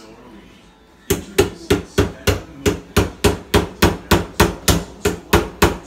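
A knife being driven down into a wine bottle's cork by rapid, evenly spaced blows, about three or four a second, each a sharp knock with a short ring; the blows start about a second in.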